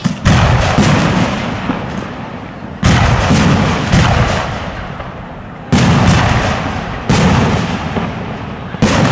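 Aerial firework shells bursting overhead: about seven loud booms at uneven intervals, each trailing off in a long rumbling echo.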